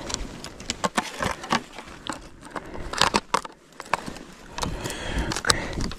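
Irregular close clicks, scrapes and crackling rustles of hands handling a just-caught small baitfish and tackle on the ice.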